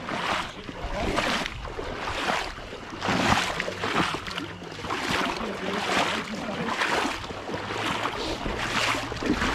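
Shallow swamp water sloshing in a steady rhythm, about one swish a second, as someone moves through it, with a faint steady low hum underneath.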